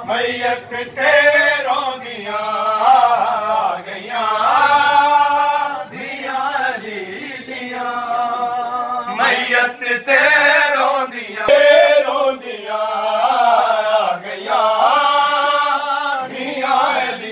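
Men's voices chanting a noha, a Shia mourning lament, in long melodic phrases with short breaks between them.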